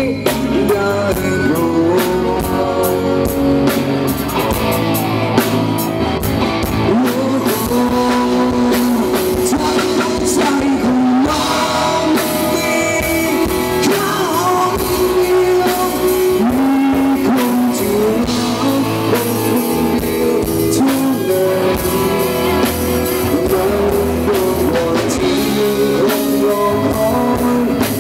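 Live rock band playing: electric guitars and drum kit, with a melody line gliding over them.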